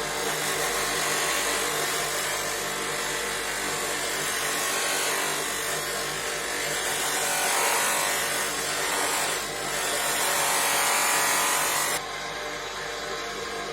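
Home-made bench polishing machine with a 150 mm wheel running steadily, with a rough rubbing hiss as a workpiece is held against the spinning polishing wheel. The rubbing stops suddenly near the end while the motor keeps running.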